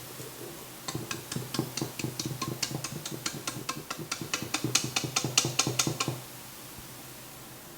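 A kitchen utensil scraping and tapping against the stand mixer's beater attachment and bowl, clearing off cake batter in quick, even strokes, about five a second for some five seconds.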